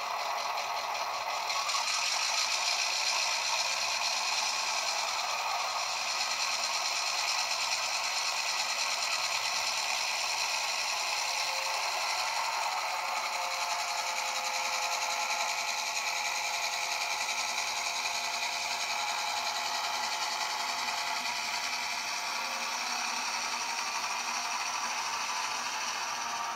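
Model train running: a model Irish Rail 141-class 'Baby GM' diesel locomotive and its ballast wagons with a steady whir and rattle of the small motor and wheels on the track.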